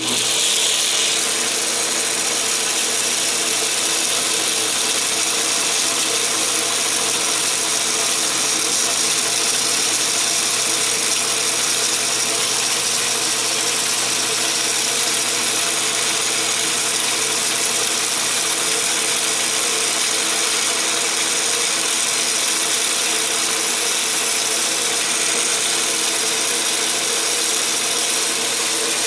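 Atlas 10-inch lathe switched on and running steadily, driving a carbide-insert face mill on a milling attachment, with a steady gear whine and mechanical hiss.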